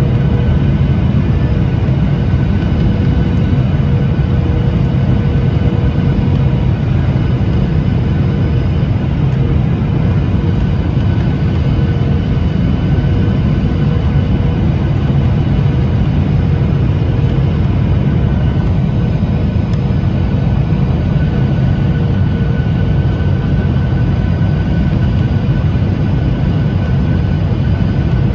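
Steady cabin noise inside a Boeing 737-800 on approach to land, heard from a seat over the wing: a deep rumble of airflow and CFM56-7B jet engines with steady humming tones on top.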